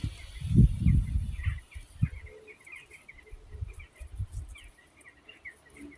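Wind buffeting the microphone in low rumbling gusts, strongest in the first second and a half, with small birds twittering throughout.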